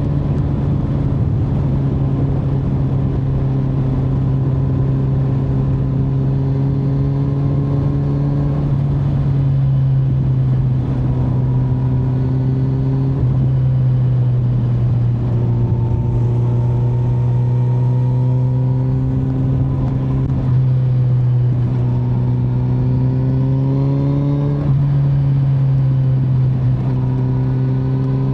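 Kawasaki Z900's inline-four engine running under way, its note rising gently and changing pitch in steps a few times as the throttle and gears change, over a steady rush of wind and road noise.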